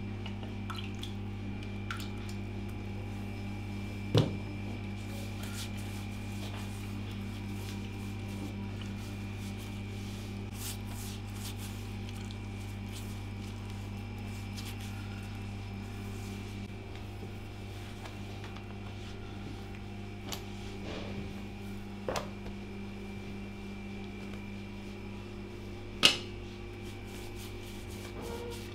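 Steady low electrical hum of kitchen equipment, with a few sharp knocks and clicks: one about four seconds in, and the loudest near the end.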